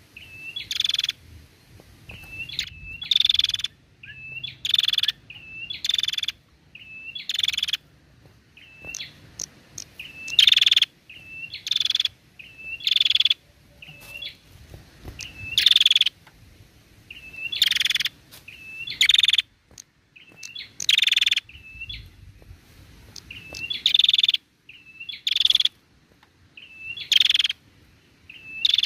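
Female prenjak calling over and over. Each phrase is a few short hooked chirps followed by a louder, longer note, and the phrases repeat every second or two with a few longer pauses.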